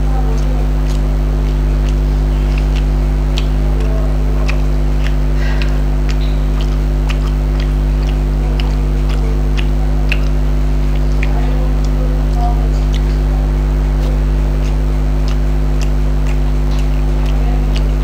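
Close-miked eating: fingers working fried rice on a plate and chewing, heard as many scattered small clicks and smacks. A loud, steady low hum runs underneath and is the loudest thing throughout.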